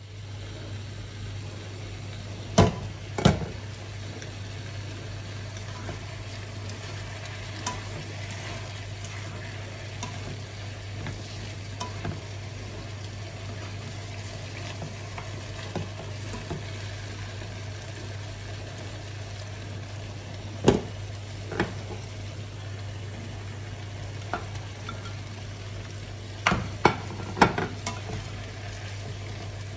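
Chopped vegetables sizzling and frying in a non-stick frying pan while being stirred with a spatula, over a steady low hum. A few sharp knocks of the spatula on the pan stand out: two a few seconds in, one around twenty seconds in, and a quick cluster near the end.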